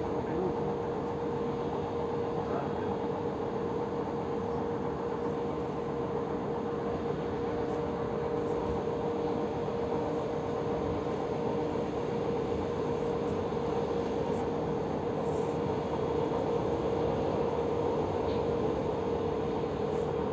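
Passenger train running, heard from inside the carriage: a steady rumble of rolling noise with a constant hum.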